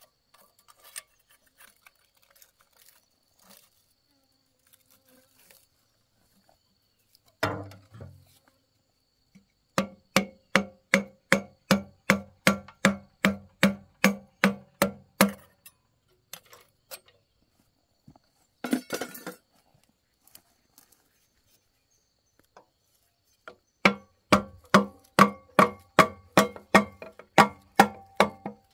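A hammer striking metal in two runs of steady blows, about three a second, each blow ringing. A short clatter comes before each run.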